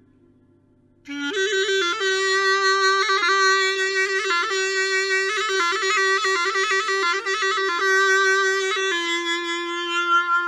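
A small hand-held woodwind played solo. After about a second of quiet it holds one long note, decorated with quick trills and grace notes. Near the end it settles onto a slightly lower held note.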